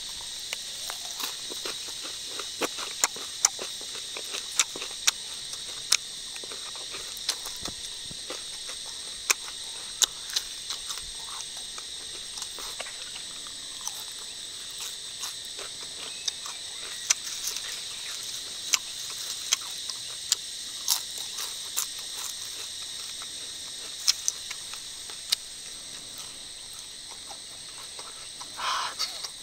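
Close-up chewing of crispy crickets: irregular sharp crunches, often several a second, over a steady high-pitched insect drone.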